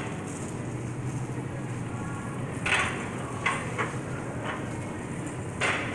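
Shopping cart rolling across a store floor: a steady low rumble from the wheels, with a few short rattles of the wire basket about halfway through and near the end.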